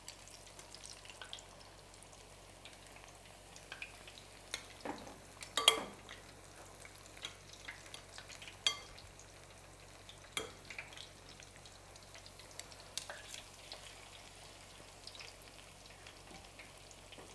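Vegetable pakora batter frying in hot oil in a stainless steel pan: a faint steady sizzle with scattered crackles. A few sharp clinks from the metal tongs and spoon, the loudest about six seconds in.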